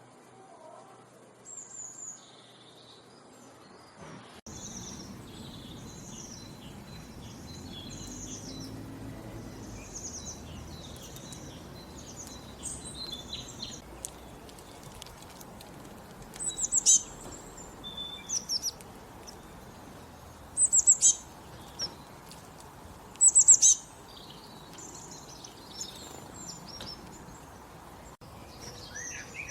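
Songbirds chirping and singing: many short high chirps and trills over a steady outdoor background hiss, which rises about four seconds in. Several louder bursts of high trilled calls come in the second half.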